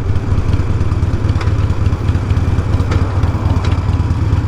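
Harley-Davidson motorcycle engine running steadily with a deep, fluttering low hum.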